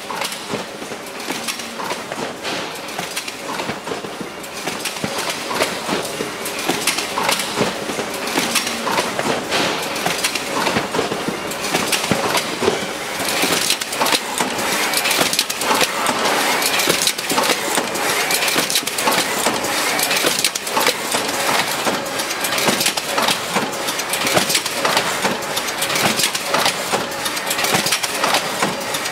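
Marden Edwards BX100FF overwrapping machine running at about 35 cartons a minute, a dense, steady mechanical clatter of many small clicks from its moving parts. It grows louder over the first dozen seconds or so.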